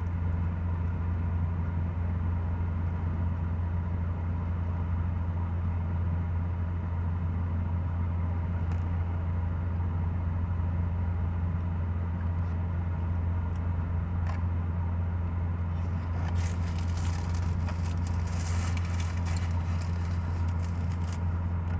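Steady low hum of an idling car engine, with a few seconds of crackling about three-quarters of the way through.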